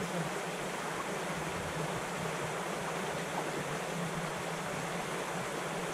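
Steady rushing of a forest stream's current.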